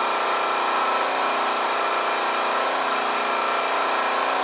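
Steady mechanical hum from a machine running continuously, with several fixed tones and no change in level.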